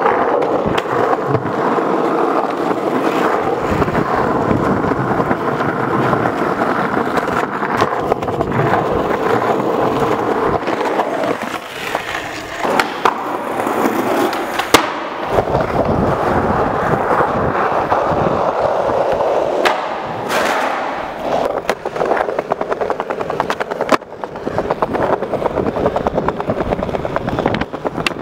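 Skateboard wheels rolling on concrete and stone paving, broken by sharp clacks of the board's pops, ledge grinds and landings. The loudest clack comes about halfway through.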